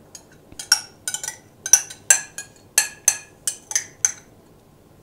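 Ketchup being knocked and scraped out of a small glass container into a stainless steel saucepan: about a dozen sharp, ringing clinks of glass and metal over about three and a half seconds.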